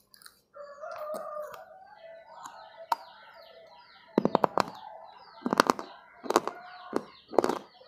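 Crisp crunching bites and chews into a hard, brittle bar, starting about four seconds in with three quick crunches and then one every half second or so. Before that, and faintly under it, birds are calling and chirping; the calls sound like a hen clucking.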